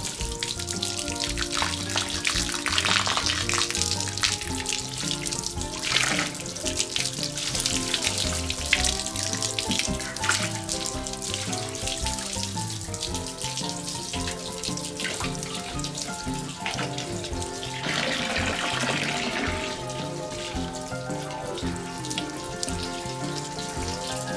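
Background music with a melody over the steady rush and splash of hot water pouring down as an utaseyu (falling-water shower) onto a bathing dog. The water grows louder for a couple of seconds past the middle.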